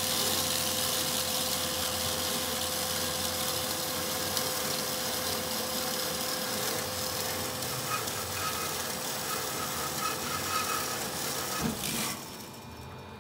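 Meba 335DG metal-cutting band saw running: a steady mechanical hiss with a constant tone underneath, which stops abruptly about twelve seconds in.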